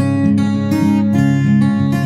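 Background music with a strummed acoustic guitar playing a steady rhythm of changing chords.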